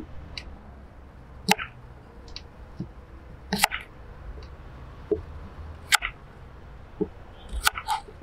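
Kitchen knife cutting through small potatoes and striking a wooden cutting board: a sharp knock about every two seconds, with softer taps in between.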